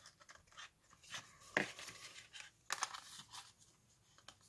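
Hands handling strips of embossed paper card: irregular rustling and scraping, with two sharper taps about a second and a half and just under three seconds in.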